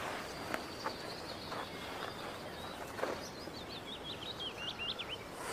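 Countryside ambience: small birds chirping over a steady background hiss, with a quick run of chirps near the end and a few faint clicks.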